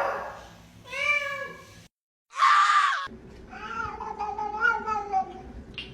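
Domestic cat meowing twice, then a short burst of hissing noise, then a long wavering yowl.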